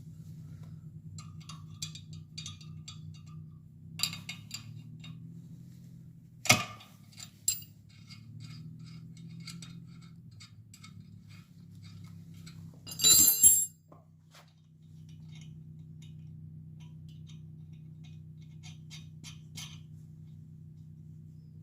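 Small metal clinks and clicks, like tools and parts being handled on a workbench, with a few sharper knocks and a short, loud, harsh rattle a little past halfway. Under them runs a steady low electrical hum that drops out briefly after the rattle and then returns.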